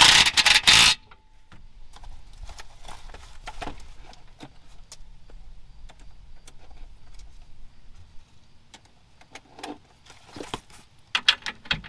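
Hand tools and metal parts handled under a car: a loud rattling clatter for about the first second, then scattered light metallic clicks and clinks, busier near the end.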